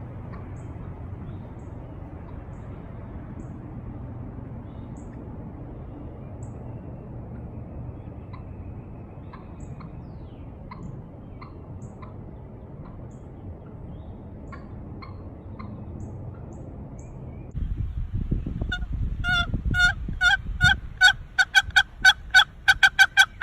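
Hand-worked turkey call giving a fast, loud run of sharp yelps and cutts, about four notes a second, beginning near the end of a long stretch of steady low outdoor background with faint high bird chirps.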